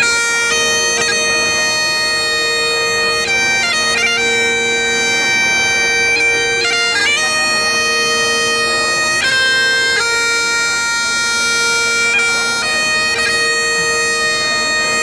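Great Highland bagpipe playing a tune: steady drones sound under the chanter's melody, which moves between held notes with quick grace-note flicks at the changes.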